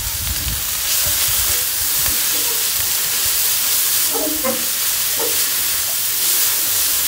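Grated carrot, spring onion and celery sizzling in hot oil in a granite-coated wok while a spatula stirs them round the pan: a steady sizzling hiss with the soft scrape of stirring.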